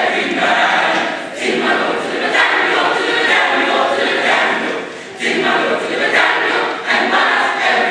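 Gospel choir singing an old spiritual, in sustained phrases with short breaks between them, about a second in and again around five seconds in.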